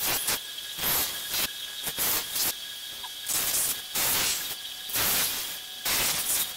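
A 1-inch belt and 5-inch disc bench sander runs with a steady high whine while a thin piece of wood is pressed against the moving sanding belt in short passes. Each pass gives a gritty rasp, about once a second.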